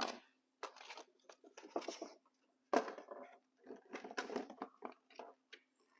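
Small parts and packaging being handled on a workbench: short, irregular bursts of rustling, crinkling and light clicks, over a faint steady hum.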